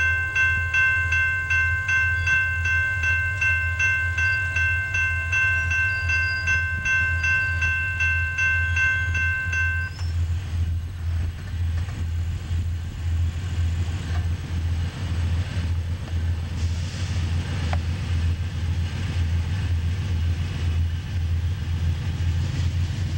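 Railroad crossing bell ringing in quick regular strokes, then stopping about ten seconds in once the gates are down. Under it runs a steady low rumble from an approaching diesel freight train.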